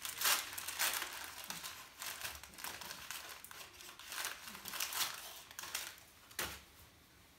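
A paper-and-plastic wrapper being crinkled and torn open by hand in a run of irregular rustles, followed by a single thump about six and a half seconds in.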